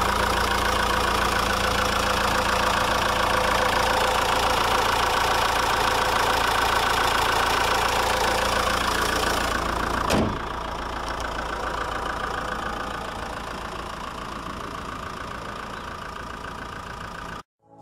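Fiat Doblo 1.9 JTD Multijet four-cylinder turbodiesel idling steadily. About ten seconds in there is a click, after which the engine sounds quieter and duller; it cuts off suddenly near the end.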